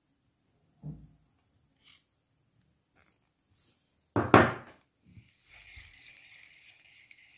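Shimano Nasci spinning reel being handled on a table. There is a soft knock about a second in and a loud clack around four seconds in as the handle is fitted. From about five and a half seconds the handle is cranked and the rotor spins with a steady light whirr from the freshly cleaned reel's gears.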